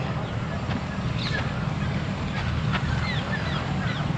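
A dog splashing about in shallow water, with scattered short high chirps over the steady sound of the water.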